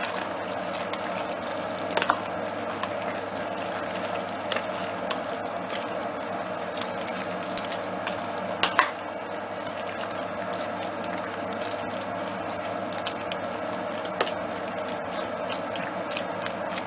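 A wooden spoon stirring a thick aubergine and tomato stew in a stainless steel pot: a wet squelching churn with a few sharp knocks of the spoon against the pot, twice about two seconds in and again near nine seconds. A steady low hum sits underneath.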